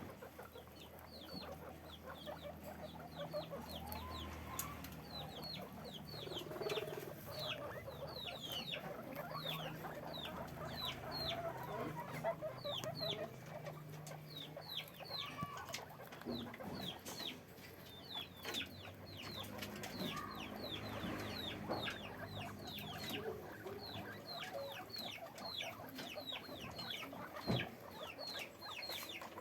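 Many guinea pigs squeaking: short, high squeaks that each fall in pitch follow one another at about two a second, over a steady low hum. A single sharp knock sounds near the end.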